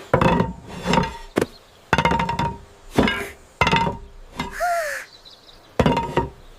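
A series of about nine sharp metallic clanks at uneven spacing, each ringing briefly, with a short falling cry about four and a half seconds in.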